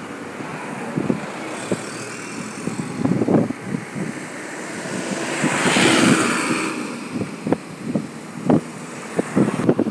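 A vehicle passing by, its noise swelling to a peak about six seconds in and then fading, over wind buffeting the microphone.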